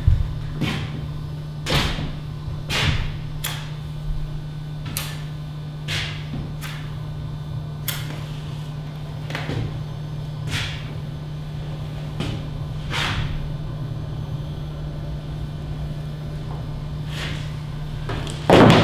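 Irregular sharp clicks and taps of small objects being handled on a plate, about one a second, over a steady low hum; a loud thud near the end.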